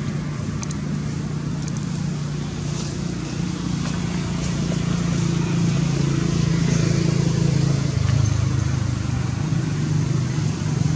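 A motor engine running steadily, its pitch dropping lower about eight seconds in.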